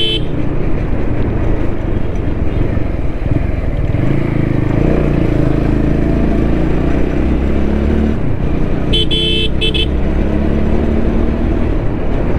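TVS Apache RTR 200 motorcycle engine running under way, with wind and road noise on the helmet-mounted mic; the engine note grows stronger and steadier from about four seconds in. A horn beeps briefly near the three-quarter mark.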